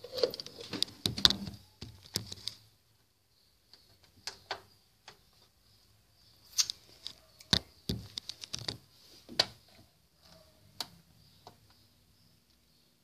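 Scattered light clicks and taps at irregular intervals, busiest in the first couple of seconds, with a faint steady hum coming in near the end.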